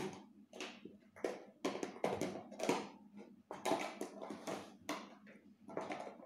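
Toner being applied to the face: a quick series of about a dozen short hissy swishes, roughly two a second.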